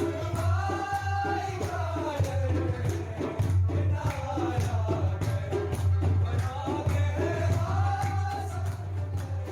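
Background music: a song with a sung melody over a steady beat and shaker-like percussion.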